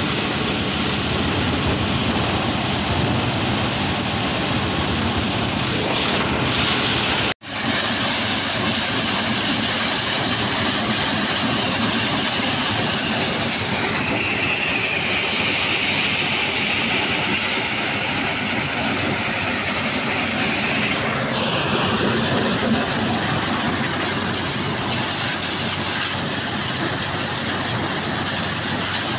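Tractor-driven grain thresher running steadily under load, threshing guar and then maize, with the tractor's engine beneath the clatter and rush of the drum and sieves. The sound drops out for a moment about seven seconds in, where the footage cuts from one crop to the other.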